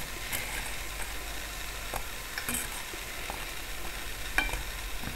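Jalebi frying in hot oil: a steady sizzle, with a few light clicks of a metal spoon against the pan as they are lifted out, the clearest about four seconds in.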